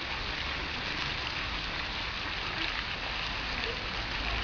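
Steady rushing noise with a low rumble underneath, even throughout.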